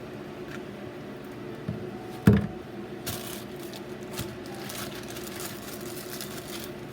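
Cooking at a wok on the stove: one sharp knock a little over two seconds in, then a few seconds of irregular crackling hiss, over a steady low hum.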